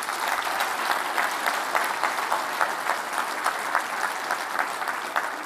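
Audience applauding: many people clapping at once in a steady patter that eases off slightly near the end.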